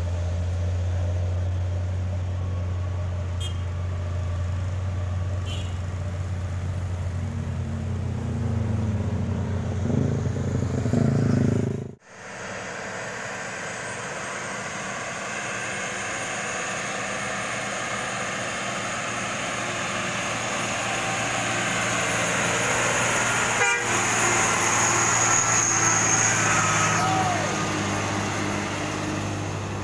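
Heavy truck engines running as trucks climb a steep, winding hill road, with a vehicle horn sounding. The sound breaks off briefly near the middle, where a different recording takes over.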